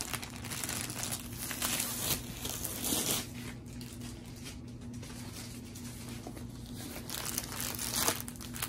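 Clear plastic wrap crinkling and crackling as it is handled and pulled off a rolled canvas, busiest during the first three seconds and again near the end.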